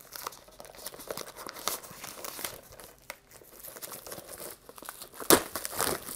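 Clear plastic shrink-wrap crinkling and tearing as it is peeled off a Blu-ray steelbook case, a run of small crackles with a louder crackle about five seconds in.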